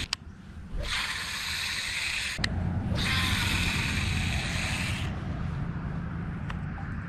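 A cheap baitcasting reel running with a rough, gritty whir in spells of one to two seconds, with sharp clicks between them. The owner calls it terrible and says it needs oil.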